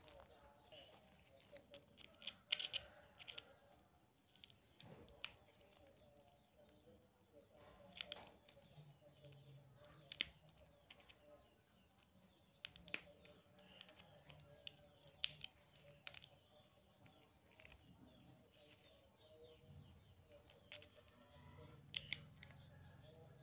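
Steel nail nippers cutting and chipping at a thick, overgrown toenail: sharp snips every two to three seconds, with faint scraping between.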